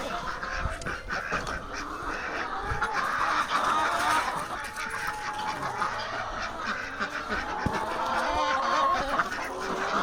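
A flock of ducks quacking, with many short calls overlapping throughout.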